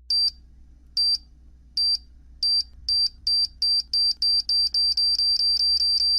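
Time-bomb countdown effect: short high-pitched electronic beeps that come faster and faster, from about one a second to about three a second, as the timer runs down to detonation.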